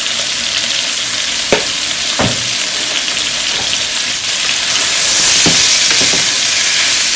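Chicken breast strips sizzling in hot oil in a frying pan, a steady hiss that gets louder about five seconds in, with a few light knocks of a utensil against the pan.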